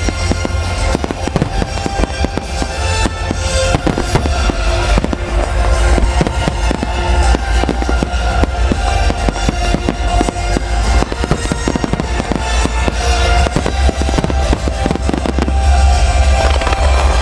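Fireworks barrage: many small shells bursting and crackling in quick succession over a deep continuous rumble, with music played along with the show. It grows a little louder near the end.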